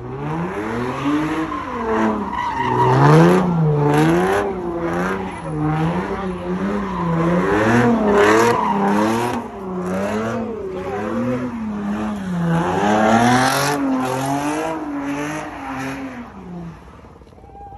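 Car engine revving up and down over and over, about once a second, with tires squealing: a car doing donuts. The sound fades away near the end.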